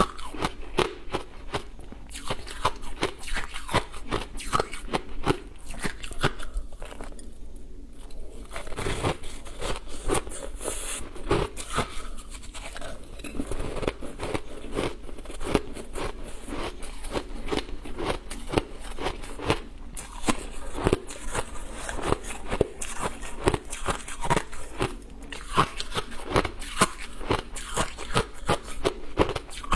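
Close-miked crunching and chewing of ice: a dense run of sharp cracks and crunches, easing for a moment about seven seconds in before the chewing picks up again.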